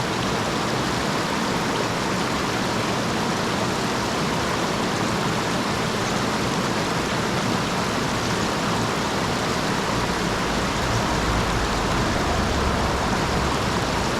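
Steady rush of flowing stream water, with a deeper low rumble coming in about ten seconds in.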